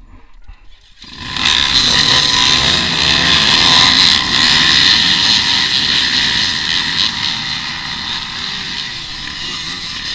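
A mass start of off-road dirt bikes: many engines revving hard and accelerating away together, bursting in suddenly about a second in and easing a little as the pack pulls ahead.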